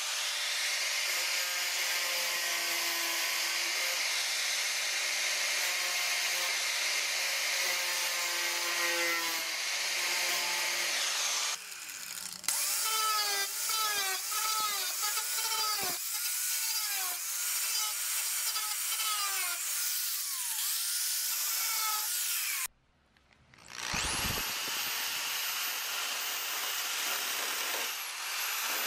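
A 4½-inch angle grinder cutting rusted sheet metal out of a pickup's body panel, running steadily at first, then with its pitch rising and falling again and again as it bites into the metal. After a short break, a smaller high-speed grinder gives a steady, very high-pitched whine while smoothing the sharp cut edges.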